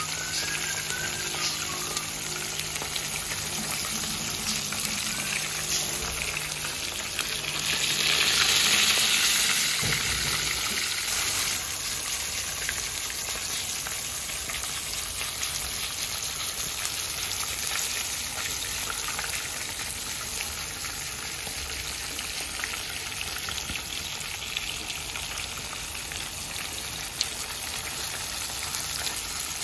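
Whole tilapia shallow-frying in hot oil in a pan: steady sizzling with fine crackles, swelling louder for a couple of seconds about a third of the way in. A faint low hum runs under it for the first third.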